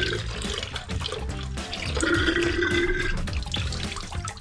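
Leftover antifreeze pouring and splashing out of a removed car radiator into a bucket, some of it missing and spilling, over background music.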